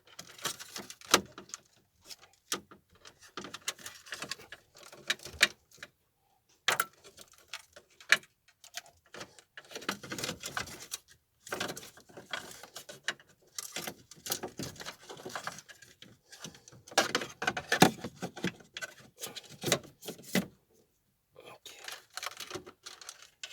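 Wiring harness, connectors and plastic dash parts rustling, clicking and knocking as an aftermarket car radio and its wiring are stuffed into the dash opening. The sounds are irregular, with short pauses between them.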